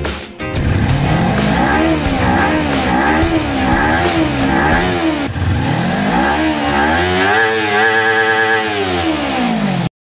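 2018 Kawasaki Ninja 250's parallel-twin engine revved at standstill through its stock exhaust: about five quick throttle blips, each rising and falling in pitch, then a longer rev held high before dropping back. The sound cuts off suddenly near the end.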